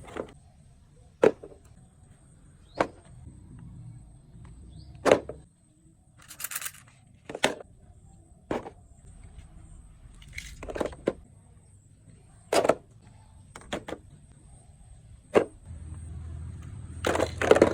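Handling noise: about a dozen sharp clicks and knocks at irregular intervals, with a brief rustle, over a faint low rumble.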